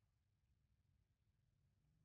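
Near silence: faint low room hum.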